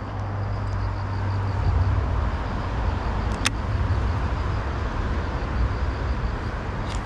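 Steady low outdoor rumble that grows a little stronger under two seconds in, with one sharp click about three and a half seconds in.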